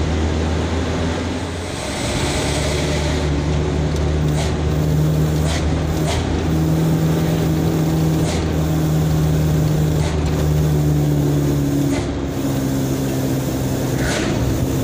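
Truck engine running as it drives, heard from inside the cab, its pitch shifting after a brief dip about two seconds in and again near twelve seconds, as with gear changes. A short hiss about two seconds in, and scattered clicks and knocks throughout.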